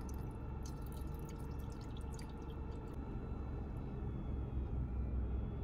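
Steady low hum of the car's engine idling to power a plugged-in cooking pot, with a run of light clicks and ticks during the first three seconds.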